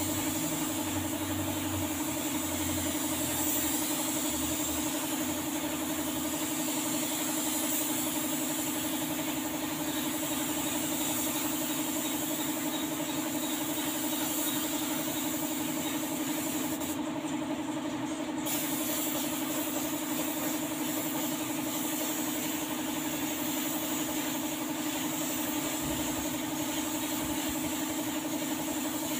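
Air spray gun hissing steadily as clear coat is sprayed onto a car's panels, over the steady hum of an air compressor running. The hiss stops briefly a little past halfway.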